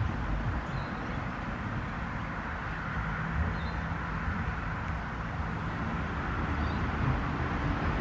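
Wind buffeting the microphone in a steady low rumble outdoors, with a few faint high chirps.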